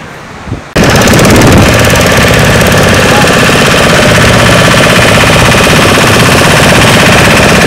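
A boat's outboard motor running loud and close, a rapid, rattling chug that starts abruptly less than a second in and holds steady.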